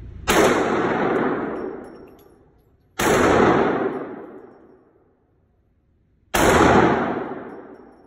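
Three pistol shots in an indoor shooting range, about three seconds apart. Each is a sharp crack that rings out in the range's echo for a second or two.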